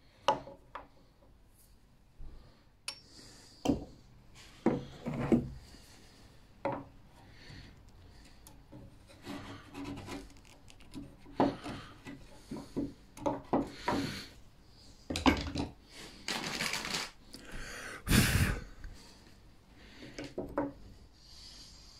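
Hammer blows and a wood chisel chopping and paring out a hinge recess in a sapele frame. A few sharp knocks come in the first seconds, then many short scraping strokes of steel on hardwood.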